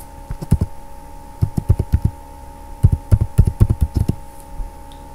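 Typing on a computer keyboard: sharp keystrokes in a few short runs, over a faint steady hum.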